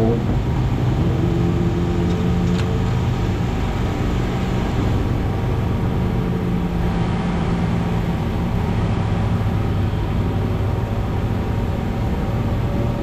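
Motorcycle engine running at steady, fairly low revs after a short rise in pitch, with a steady rush of noise over it and one brief click about two and a half seconds in.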